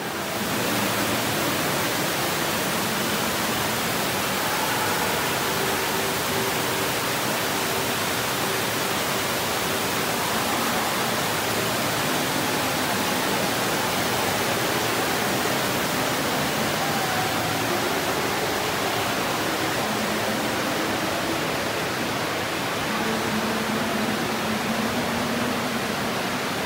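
Steady rushing noise, even and unbroken, like running water or a strong air flow.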